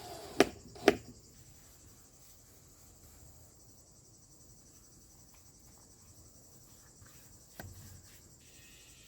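Crickets chirping steadily, with two sharp knocks about half a second apart near the start and a softer knock near the end.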